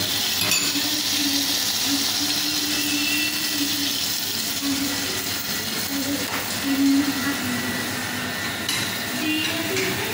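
Steady rushing noise of a commercial kitchen's extractor hood and a lit gas burner under a saucepan, with a few light clinks of utensils near the end.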